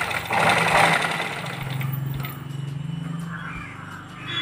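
Black cast-iron sewing machine stitching fabric at speed: a loud, fast rattle of needle strokes for about the first second, then a steadier, lower running hum.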